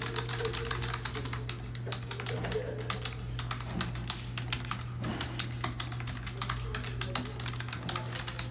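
Fast, irregular typing on a computer keyboard, keystrokes clicking in quick runs, over a steady low hum.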